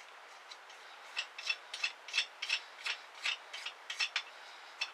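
Ratchet wrench clicking in quick, irregular runs as a 1/4-inch nut is tightened down onto the threaded end of a knife's rat-tail tang. The clicks start about a second in and go on to just past four seconds, with one more near the end.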